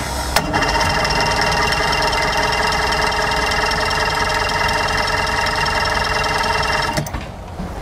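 Four-cylinder Mercury Force 120 outboard being cranked on its electric starter, a steady whirring that does not catch and stops abruptly near the end. The owner suspects a carburetor problem.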